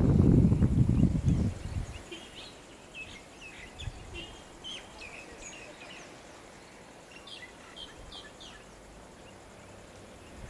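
A loud low rumble that fades out over the first two seconds, then small birds chirping in many short, high notes.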